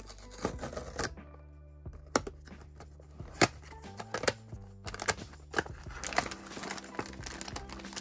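Cardboard blind box being opened by hand: its paper flaps clicking and scraping. From about six seconds in, a crinkly plastic bag is pulled out and handled, rustling steadily.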